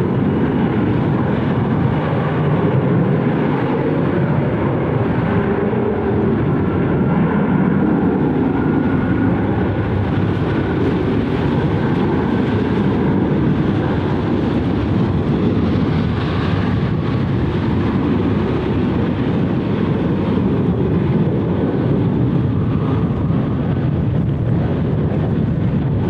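Jet airliner engines running, a steady rumble with a faint whine above it.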